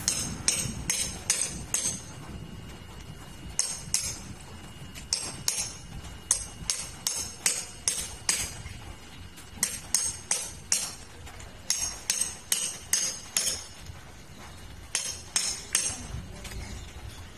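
Repeated sharp metallic clinks from a hand tool striking metal at the base of a steel gate, coming in quick runs of strikes with short pauses between them.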